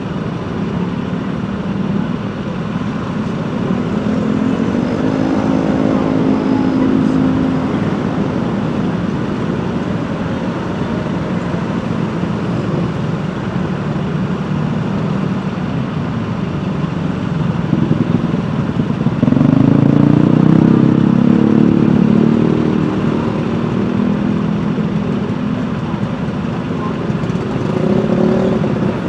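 Road traffic: steady engine and tyre noise from motor vehicles. An engine climbs in pitch about five seconds in, and a louder engine swells around twenty seconds in.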